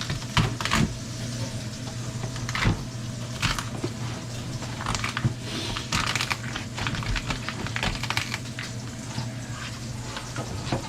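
Irregular sharp clicks and knocks of a knife cutting into and beheading a lobster on a cutting board, over a steady low hum.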